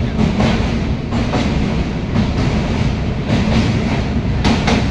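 Train running at speed, heard from inside the coach: a steady rumble of wheels on rails with irregular clacks, including two close together near the end.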